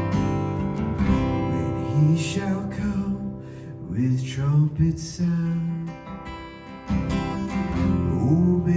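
Worship music: an acoustic guitar strumming chords with other instruments, in an instrumental passage of the song.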